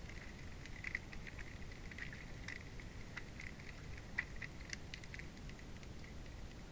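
Under-ice hydrophone recording: a low, steady water rumble with faint, irregular clicks and crackles, two of them sharper, about a second in and past the middle.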